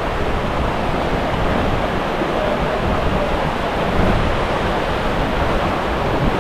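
Steady rush of fast-flowing river water tumbling through a gorge.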